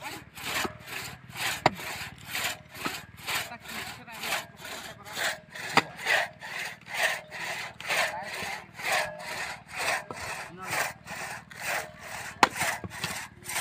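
Hand saw cutting firewood with steady back-and-forth strokes, about two and a half a second, with a few sharper knocks in between.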